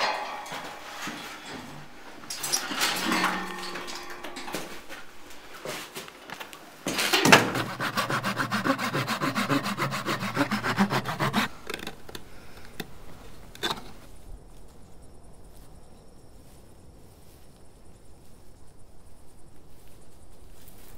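Rhythmic scraping, rubbing strokes, like sawing or rasping. A rough burst comes early, and a louder, denser run of rapid strokes lasts from about seven to eleven seconds. Fainter, even pulses follow near the end.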